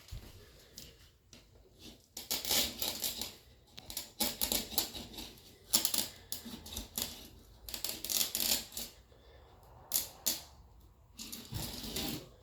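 Spline roller pressing rubber spline and screen mesh into the channel of a sliding-door screen frame: about five rattling, scraping strokes, each about a second long.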